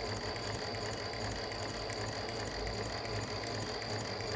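Mannan King chain stitch embroidery machine running steadily, with an even low hum and a thin high whine.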